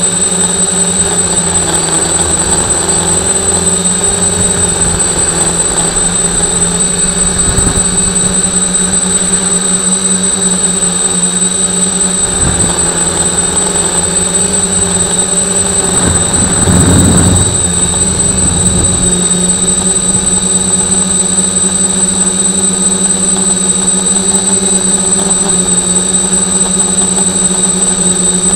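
Electric motors and propellers of a camera-carrying RC drone, heard from on board: a steady hum with a high, constant whine. A little past the middle, a louder rushing swell lasts about two seconds.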